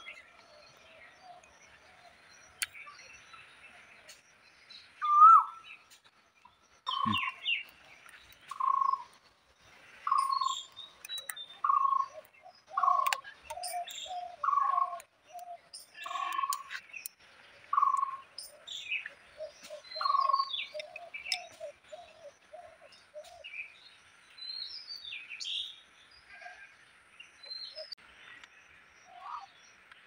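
Birds calling: one bird repeats a short clear note about once a second through the middle, with other birds chirping around it, over a faint steady hiss and a few light clicks.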